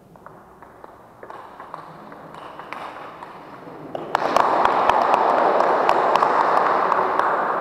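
Table tennis rally, the ball clicking off the bats and table, then spectators clapping as the point ends, starting about four seconds in and the loudest sound here.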